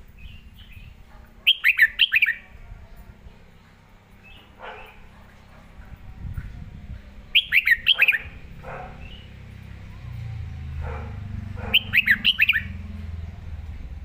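Red-whiskered bulbul singing three short, loud phrases of quick up-and-down notes, about five seconds apart, with softer single notes between them. The song is the clear 'double' (เบิ้ล) style that Thai bulbul keepers prize.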